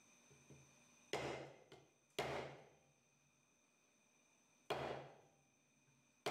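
Ball-peen hammer striking a wooden block to drive a pinion seal into a Dana 60 axle housing: three sharp blows a second or more apart, each dying away over about half a second, and a fourth right at the end.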